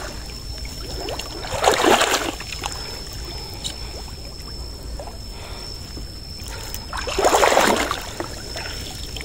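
Shallow water splashing and sloshing twice: a short burst about two seconds in and another near the end.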